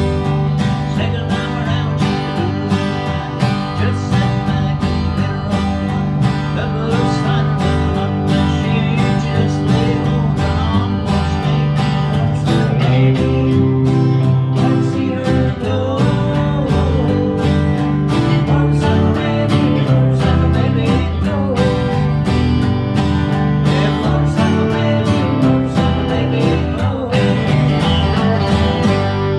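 Country band playing live: acoustic and electric guitars strummed and picked over an electric bass, in a steady beat.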